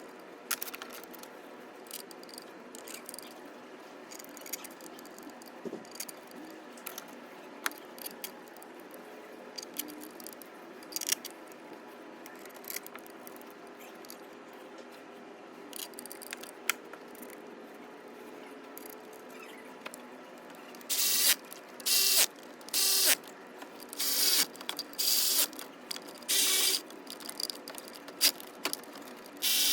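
Hand ratchet snugging up the water pump bolts on a Lexus IS 250 V6: light metal clicks and knocks as bolts and tools are handled, then, for the last third, short bursts of ratchet clicking about once a second as each back-stroke is taken.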